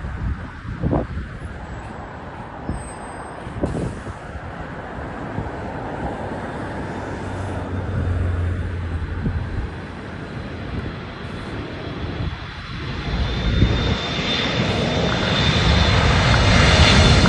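Jet engines of a Boeing 747 on approach, growing louder with a rising whine near the end. Strong gusts buffet the microphone throughout.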